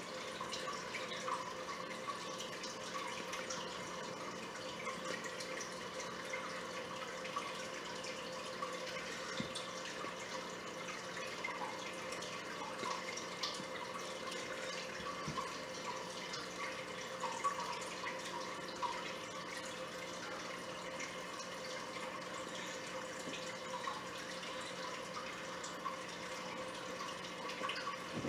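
Steady trickle of moving water with small drips, over a faint steady hum.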